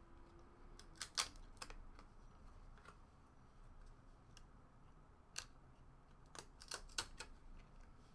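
Cardboard trading cards being handled and flipped, giving a few sharp clicks and snaps: a cluster about a second in and another from about five to seven seconds in, over faint room tone.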